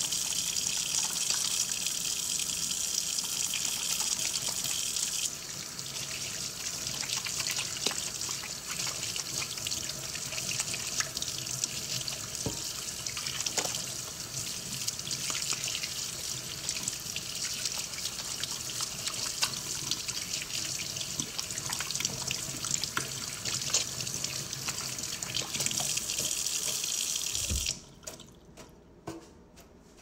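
A tap running into a sink while hands are washed under the stream, the water splashing with many small ticks. Near the end the tap is turned off, followed by a few faint ticks.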